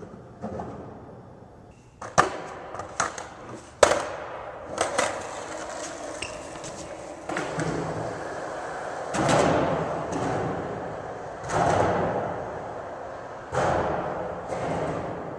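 Skateboard wheels rolling on a concrete floor, the rumble swelling and fading several times as the board passes, with a few sharp clacks of the board about two to four seconds in.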